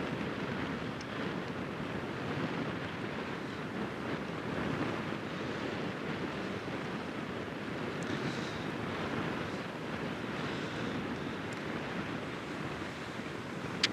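Steady rushing noise of wind and water, with the wind buffeting the microphone.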